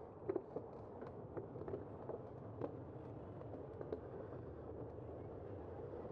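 Steady rolling and rumbling noise of a bicycle riding over rough asphalt, picked up by a bike-mounted camera, with a handful of sharp, irregular clicks and rattles from the bike jolting on the pavement in the first few seconds.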